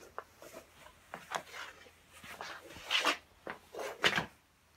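Handling noises: a scatter of light knocks, scrapes and rubbing as the stunt scooter is moved and stood upright on a carpet, with two louder rustling scrapes about three and four seconds in.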